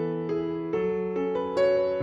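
Background music: a piano-like keyboard playing a slow melody of held notes over a sustained bass note, with new notes coming in about every half second.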